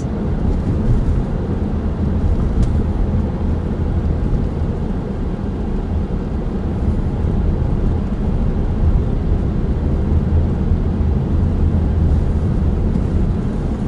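Steady low rumble of a car's engine and tyres on the road, heard from inside the cabin while driving slowly.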